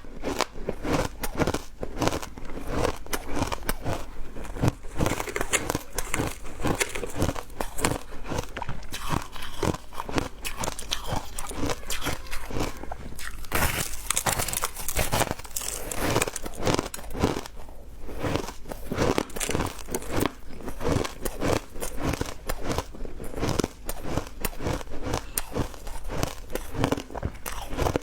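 A person biting and chewing ice close to the microphone: a dense, continuous run of crisp crunches, with a hissier, grittier stretch about halfway through.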